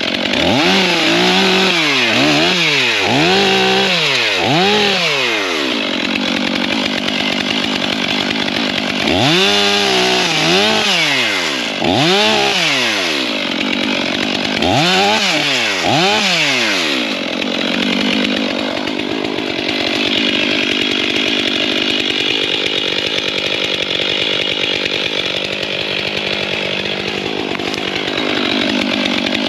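Stihl chainsaw revving up and down about once a second in three runs. After these it runs steadily for a long stretch, its pitch held lower and even, as when the chain is bearing into a fallen ash log.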